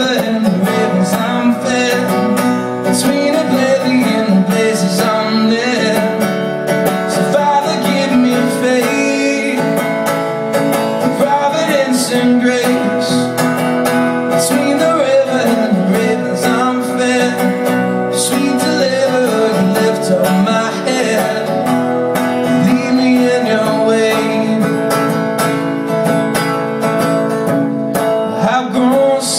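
Live solo song: an acoustic guitar strummed steadily, with a man's singing voice over it at times.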